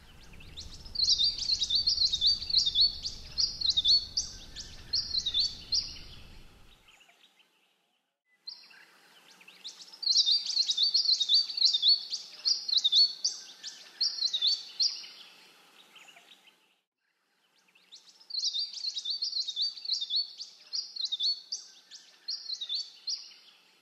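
A songbird singing a phrase of about eight to ten quick, high, down-slurred notes, repeated three times with pauses of a couple of seconds between. A low rumble runs under the first phrase.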